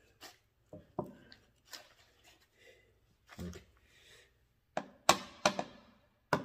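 A small hammer tapping on an aluminium automatic-transmission valve body (ZF 6HP mechatronic unit), about four sharp taps with a brief ring, close together near the end. Before them, light clicks of parts being handled.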